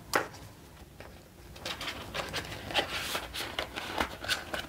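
Paper prop-money bills and a clear plastic binder pocket being handled: a sharp tap at the start, then irregular rustling and light taps, busier from about a second and a half in, as the bills are slid into the pocket.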